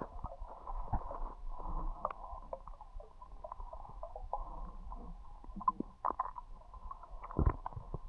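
Muffled underwater ambience picked up by a diver's camera: a low rumble with scattered faint clicks and knocks, and a louder low thump about seven and a half seconds in.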